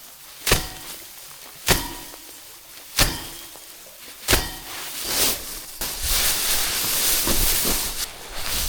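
Four sharp knocks, evenly spaced about 1.3 seconds apart, followed from about halfway by a steady rustling hiss with a few softer knocks in it.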